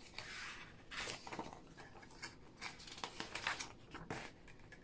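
Paper rustling and crackling in faint, irregular bursts as papers are lifted out of a cardboard box and a large folded poster is opened out.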